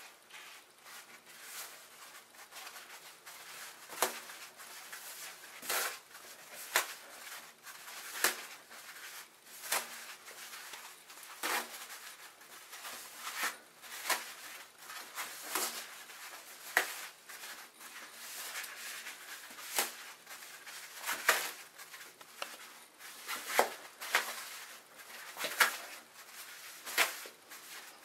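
Toilet paper tearing and rustling as a bare foot scrapes and shreds it on a tiled floor, with a sharp rip about every one to two seconds.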